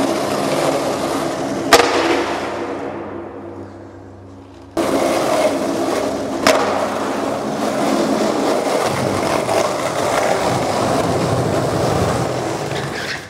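Skateboard wheels rolling on a smooth hard floor, with a sharp clack from the board about two seconds in and another partway through. The rolling fades out, then starts again abruptly at full strength around five seconds in.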